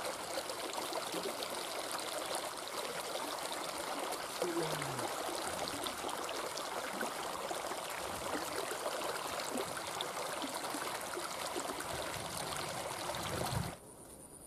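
Canal water rushing and splashing over a small drop, a steady noisy flow. It cuts off suddenly near the end, leaving a much quieter background.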